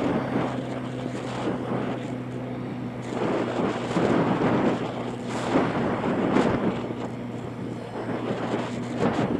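Motorbike engine running at a steady cruise with a constant low hum. Wind buffets the microphone, surging and fading every second or two.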